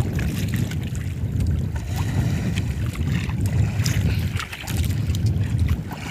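Wind buffeting the microphone aboard a small outrigger fishing boat: a loud, uneven low rumble. Light clicks and taps come from handling the longline's hooks and fish.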